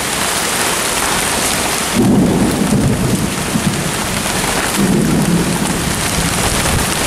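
Heavy rain pouring steadily in a thunderstorm, with thunder rumbling about two seconds in and again around five seconds.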